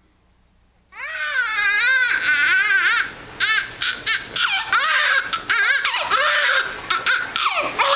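Newborn baby, minutes old, crying, starting about a second in after a near-silent pause. The wails waver up and down in pitch, with a few short breaks.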